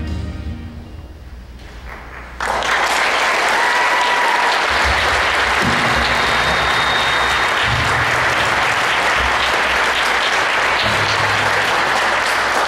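The last notes of a piece of music die away, then a large audience breaks into applause about two seconds in and keeps clapping steadily.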